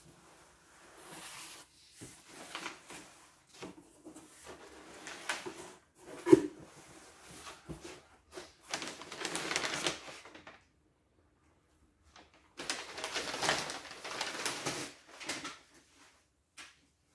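Crumpled kraft packing paper rustling and crinkling as it is pulled about inside a cardboard box, with the box's flaps scraping. A single sharp knock about six seconds in; a stretch of near quiet between the two longest spells of rustling.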